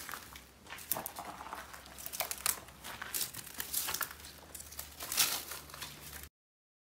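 Footsteps crunching over dry dirt, loose stones and dry weeds, an uneven run of crackles and snaps. The sound cuts off suddenly near the end.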